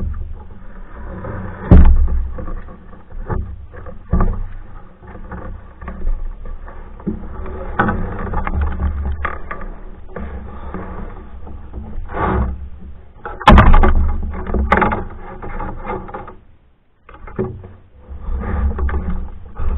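Paddling a Hornbeck New Trick solo canoe: uneven water swishes from the paddle strokes, with a few sharp knocks, the loudest about two seconds in and near the middle.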